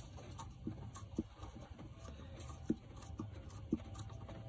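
Faint hand-work noise: about five soft, irregular clicks as fingers turn a screw and handle the plastic parts of a car headlight housing.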